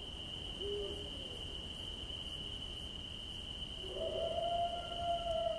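Night ambience: a steady cricket trill over a low rumble. A short animal call comes in under a second in, and about four seconds in a long drawn-out animal call holds and then slides down in pitch.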